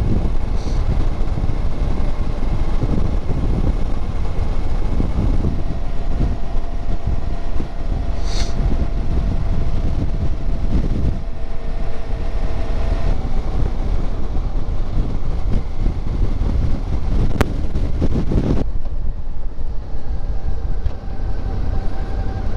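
Suzuki V-Strom V-twin motorcycle under way, its engine droning steadily beneath heavy wind rumble on the rider's microphone. The rushing hiss eases suddenly about two-thirds of the way through.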